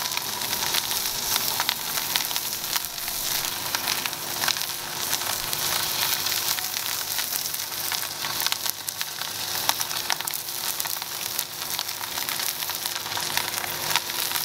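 Wagyu steak searing in a smoking-hot Lodge cast iron skillet: a steady, dense sizzle with many sharp pops and crackles of spitting fat. This is the high-heat sear on the first side of a reverse sear.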